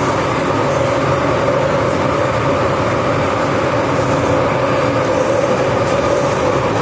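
MTR M-Train heard from inside the car while running: a steady rumble with a held whine throughout.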